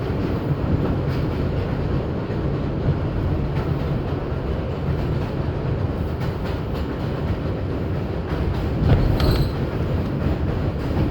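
Interior of an R62A subway car under way: the steady rumble of the car's wheels and running gear on the track, with occasional clacks over rail joints.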